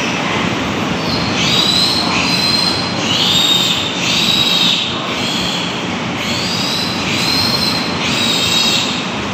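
Piglets squealing repeatedly, high-pitched cries about once a second, over a steady low background noise.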